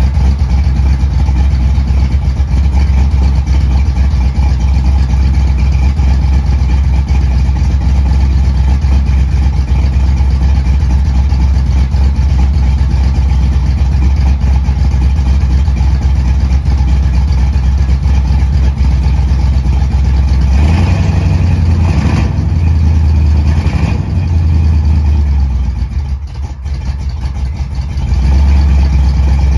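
A customized Chevy's engine idling steadily, blipped up a few times about two-thirds of the way through.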